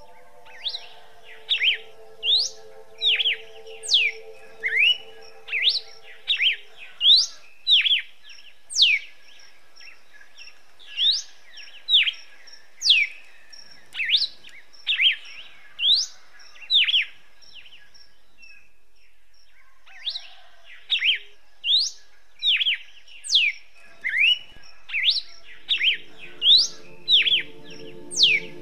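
Red-cowled cardinal (galo-de-campina) singing: a run of loud, sharp whistled notes, each a quick upward or downward slur, about one or two a second, breaking off for a few seconds after the middle before resuming. Soft sustained music chords sound underneath at the start and again near the end.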